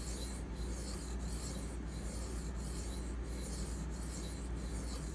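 Dalton 07 Militia knife blade being stroked across a wet 800-grit Venev bonded diamond sharpening stone: a steady scraping hiss, about one and a half strokes a second.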